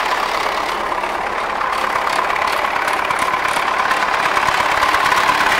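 MTZ tractor's four-cylinder diesel engine running at idle, with a steady whine above it, getting a little louder toward the end.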